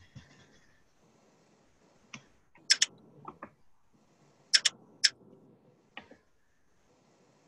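Computer keyboard keystrokes: a handful of sharp, scattered clicks, some in quick pairs, with pauses between.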